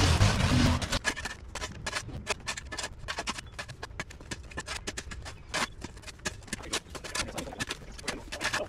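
A long-handled garden hoe chopping and scraping into dry dirt and sod, a quick run of short knocks several times a second. It opens with about a second of louder rushing noise.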